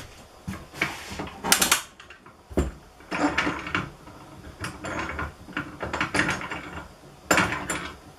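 Metal clamps being handled and set on a glued-up wooden panel: an irregular string of clanks, knocks and short sliding rattles.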